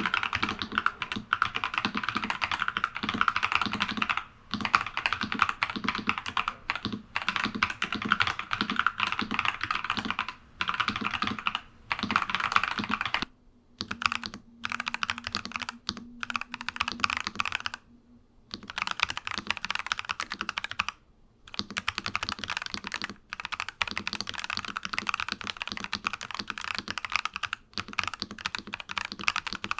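Fast, continuous typing on a NuPhy Halo 96 mechanical keyboard with Akko Crystal Silver switches, dense runs of keystroke clacks broken by a few short pauses about halfway through.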